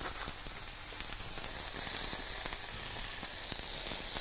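Two beef steaks and a halved baguette searing in hot oil in a stainless steel frying pan: a steady sizzle with many small crackles.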